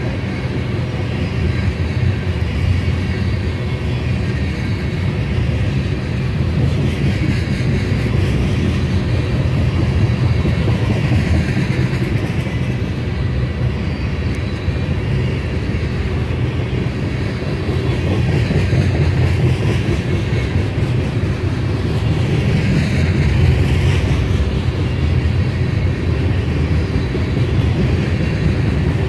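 A freight train of railroad tank cars rolling past close by. Its steel wheels rumble and clack steadily on the rails without a break.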